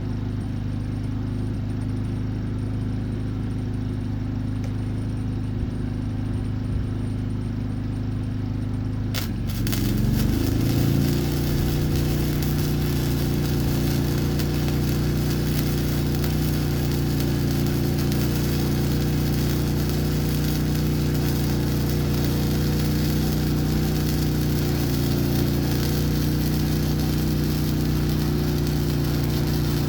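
Generator engine running steadily. About nine seconds in, an electric welding arc strikes and crackles steadily with a hiss, and the generator's engine note shifts as it takes the welding load.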